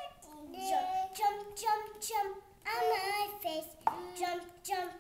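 A young child singing in a high voice, a run of held notes that glide up and down, broken by short pauses.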